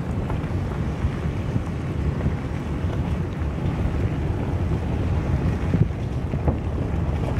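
Vehicle driving on a dirt road: a steady low rumble of tyres on the road surface with wind buffeting the microphone, and a couple of small knocks about six seconds in.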